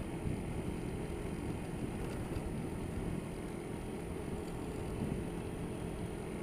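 Steady wind and road noise on a helmet-mounted camera while riding a Honda Dio scooter, its engine running underneath at an even pace.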